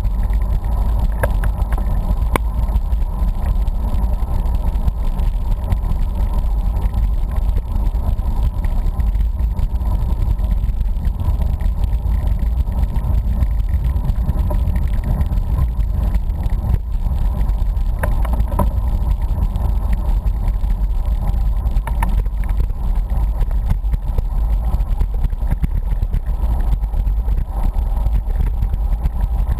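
Wind buffeting the microphone of a camera on a moving bicycle: a steady, loud, low rush, with a few faint clicks.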